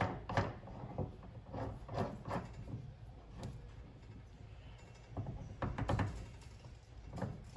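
Irregular metal clicks, taps and knocks as the steel parts of a quick change tool post and its hold-down bushing are handled and test-fitted onto a mini lathe's compound. Most of them come in the first couple of seconds, with another cluster a little after the middle.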